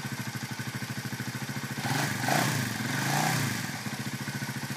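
Honda CB125 S single-cylinder engine idling with a steady beat, blipped on the throttle twice about two and three seconds in, each rev rising and falling before it drops back to idle.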